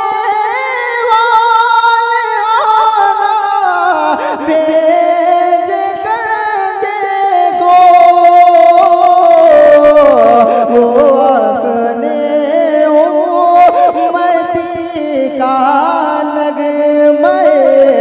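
A man singing a naat solo in the drawn-out devotional style, holding long ornamented notes with vibrato that slide between pitches and step lower over the phrase.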